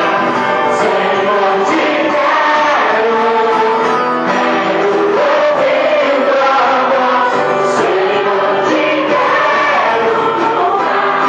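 Live gospel band playing, with several voices singing together over keyboard and guitar.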